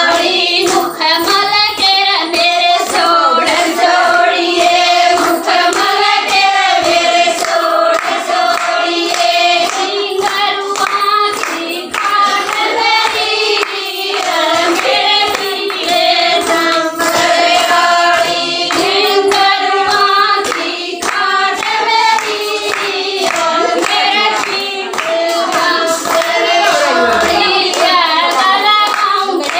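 Women singing a Haryanvi jakri folk song together, with hand-clapping keeping a steady beat under the melody.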